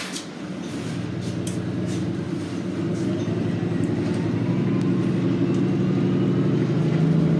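A 2019 Nova Bus LFS Hybrid's diesel-electric drivetrain pulling away from a stop, heard from inside the bus: a low engine drone growing steadily louder, with a faint rising whine. A few light clicks or rattles come in the first two seconds.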